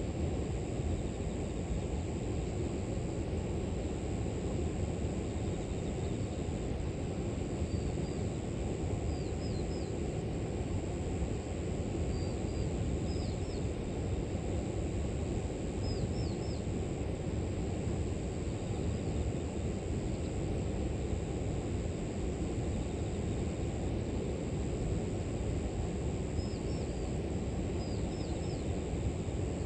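River water flowing steadily, with a constant high-pitched trill of grass insects. A small bird calls now and then in brief clusters of two or three quick chirps, starting about eight seconds in.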